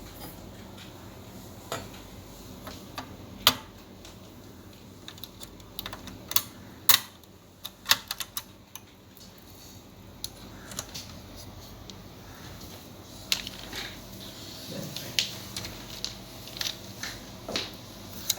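Irregular sharp clicks and taps of small hard plastic and metal parts and tools being handled while an all-in-one computer is taken apart. The clicks are loudest about a third of the way in, then come in a cluster around the middle, over a faint steady hum.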